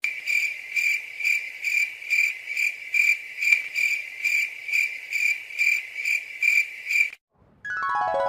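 Cricket chirping sound effect: an even run of high chirps, a little over two a second, that starts and cuts off abruptly about seven seconds in. Music with sweeping tones comes in near the end.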